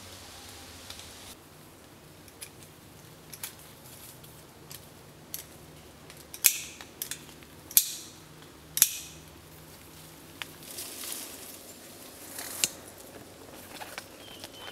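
Sharp snips and clicks of a hand tool cutting marks into the bark of medlar tree branches: three loud cuts close together about halfway through, with fainter ticks between.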